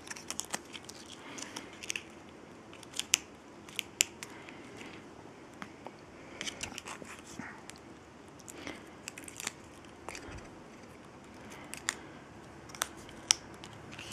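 Paper pieces and a sticker being handled and pressed onto a cardstock card: scattered light clicks and short rustles.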